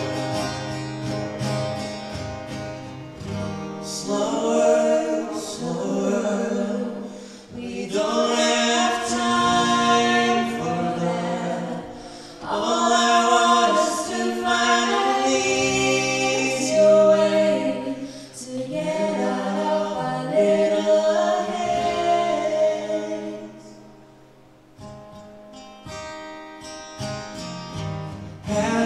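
Live acoustic duet: a woman and a man singing a song to two acoustic guitars. The music drops low about twenty-four seconds in, then picks up again softly.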